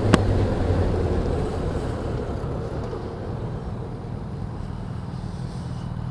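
Motorcycle on the move: engine running with wind noise, easing off and getting quieter as the bike slows over the first few seconds. A single sharp click comes just after the start.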